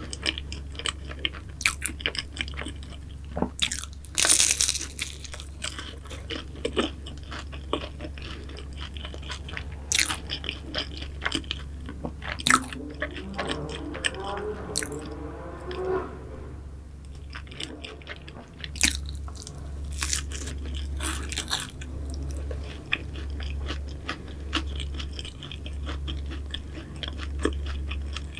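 A person biting and chewing pastries close to the microphone: crisp crunches and wet chewing clicks at an irregular pace, with a louder crackly bite about four seconds in.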